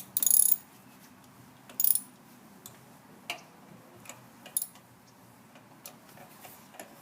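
Ratchet wrench turning a spark plug socket: two short bursts of ratcheting, the first about a quarter second in and the second about two seconds in, followed by scattered clicks and light knocks of tools against the engine.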